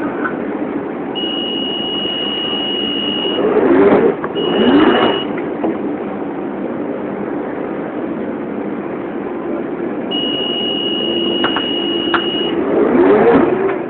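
A London Underground 1992-stock train standing at a platform with its doors open, giving a steady hum and rumble. A long, high, steady electronic tone sounds three times, twice lasting about two seconds and once briefly.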